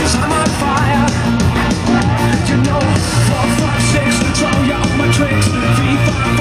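Loud rock-style dance music with a steady beat and a singing voice, played over a party sound system.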